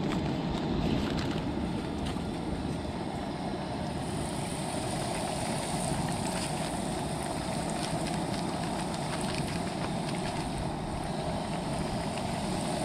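Breaded fish fillets deep-frying in a pan of hot oil on a propane camp stove: a steady sizzle with scattered crackles.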